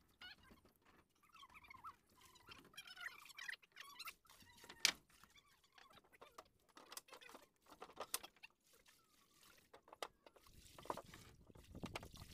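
Faint, scattered knocks and taps from a man handling a moored wooden boat, with one sharper knock about five seconds in. Faint high chirping in the first few seconds, and a low rumble near the end.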